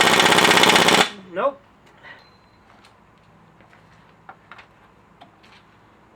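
Pneumatic impact wrench hammering loudly, cutting off abruptly about a second in without the fastener breaking loose. It is followed by a few light clicks and taps of metal tools.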